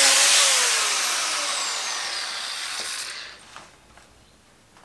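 Angle grinder grinding a steel frame with sparks, then switched off about half a second in, its whine sliding down in pitch as the disc spins down over about three seconds.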